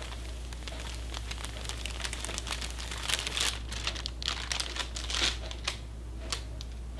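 Clear plastic bag crinkling and crackling as a bulky fibre batt is worked out of it, the crackles busiest in the middle of the stretch.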